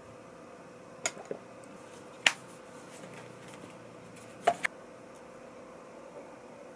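A few short sharp taps and clicks: a glass mug set down on a table, then a tablet and its case handled and flipped open. A faint steady hum underneath.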